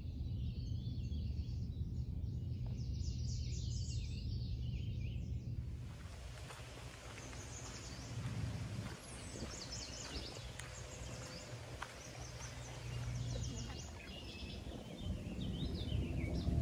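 Several wild birds chirping and singing in short phrases and trills, over a steady low rumble.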